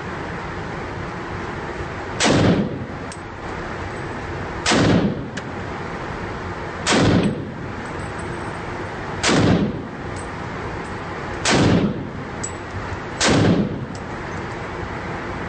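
Six single rifle shots fired at a slow, even pace about two seconds apart in an indoor shooting range, each with a short echo off the walls.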